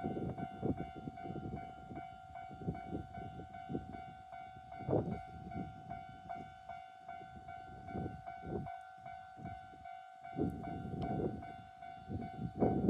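Japanese level-crossing warning bell ringing with a steady tone, over the low rumble and clatter of a KiHa 40 diesel railcar at the crossing. The rumble grows louder near the end.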